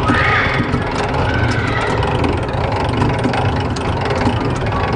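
Steady street traffic noise with vehicle engines running.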